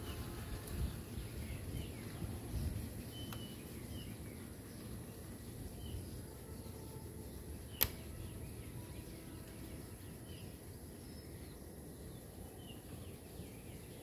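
Quiet outdoor ambience: faint, scattered short bird chirps over a low rumble and a steady high hiss, with one sharp click a little past the middle.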